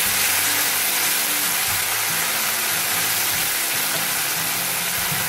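Chopped tomatoes, onion and curry leaves sizzling in hot oil in a nonstick pan, stirred with a wooden spoon: a steady high-pitched hiss as the tempering for rasam fries and the tomatoes cook down.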